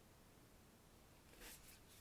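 A few faint keystrokes on a FLO-AT custom mechanical keyboard with Cera R3 switches, DCS keycaps and an aluminium plate, gasket-mounted with no foam, coming as a quick cluster of clicks about one and a half seconds in; otherwise near silence.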